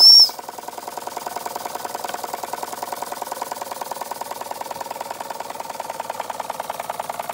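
Bing Vesuv toy steam engine (c. 1903) with vertical boiler running steadily, a fast even beat that stays the same throughout. A short high whistle toot from the boiler cuts off right at the start.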